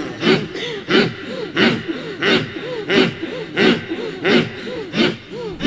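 Men chanting zikir together in a rhythmic breathing chant: short grunted voiced syllables, each rising and falling in pitch, about three a second, with a sharp breathy accent roughly every two-thirds of a second.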